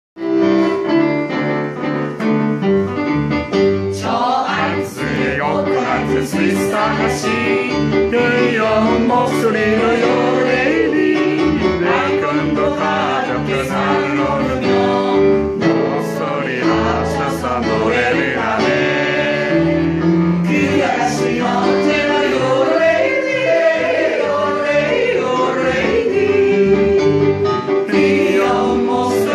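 A yodel song sung by a group with a woman's voice leading, accompanied by an electronic keyboard and two double basses keeping a pulsing low bass line.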